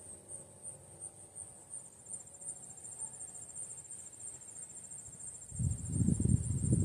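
Crickets chirping in a steady, high, pulsing trill. A faint tone slides down and fades out in the first few seconds, and a louder low rumble comes in about five and a half seconds in.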